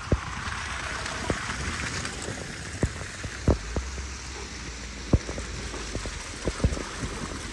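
Wet snow falling in a snowstorm: a steady hiss with scattered drops ticking and knocking irregularly on a nearby surface.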